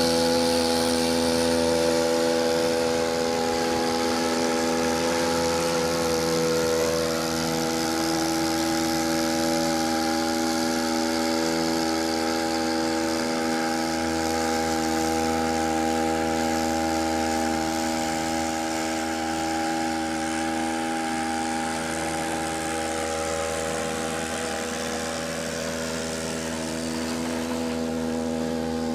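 Homemade mud motor's little 43cc brush cutter engine running steadily under way, its pitch holding even with only slight swells and dips in loudness as the boat passes.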